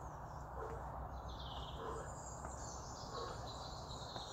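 Faint birdsong with chirping insects over a low steady hum; a high call glides about a second and a half in.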